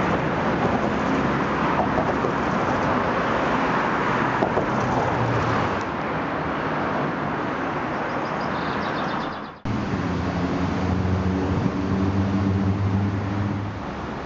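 Road traffic and wind noise. About two-thirds of the way in it breaks off abruptly, then resumes with a steady low vehicle engine hum.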